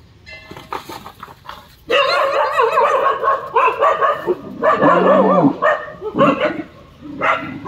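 Street dogs barking and yelping in repeated bouts. The barking turns loud about two seconds in and goes on with short pauses.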